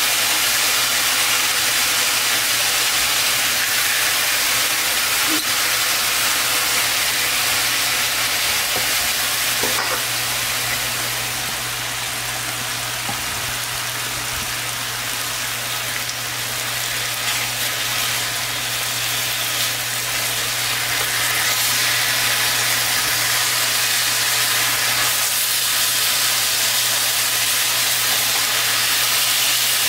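Thin-cut marinated beef short ribs sizzling steadily as they fry in a nonstick pan, with a steady low hum underneath.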